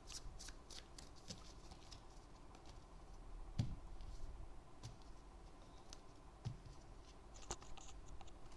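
Tarot cards handled on a tabletop: light shuffling flicks, then soft taps and slides as the deck is cut into piles and set down, with one sharper knock a few seconds in.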